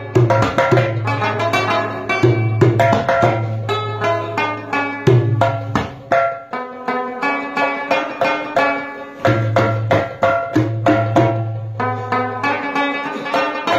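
Rabab plucked in a quick, busy melody, accompanied by a mangay pot drum struck with the hands in a steady rhythm, with a deep bass note coming and going.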